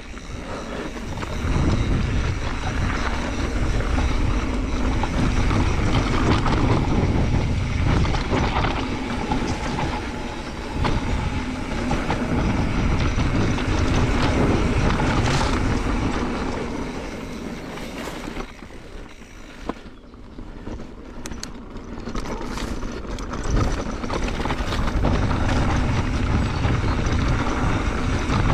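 Mountain bike riding down a dirt trail: a steady rumble and rattle of the bike over the rough ground, easing for a few seconds about two-thirds of the way through, where a few sharp clicks stand out, then building again.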